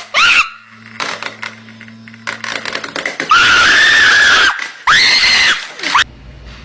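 Someone screaming in a high pitch: a short shriek at the start, then two long screams, each rising and falling, in the middle, with a few sharp knocks before them and an abrupt stop about six seconds in.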